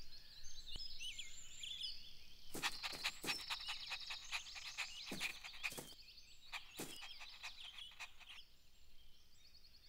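Soft outdoor nature ambience of small birds chirping and trilling. Between about two and seven seconds in come a run of short sharp ticks.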